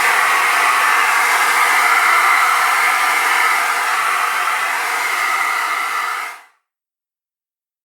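An electric household appliance's fan motor running steadily: a whine over a rush of air. It stops about six seconds in.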